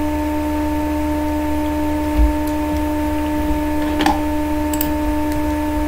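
Steady electrical hum with a constant whine of several held tones, broken by a few faint clicks.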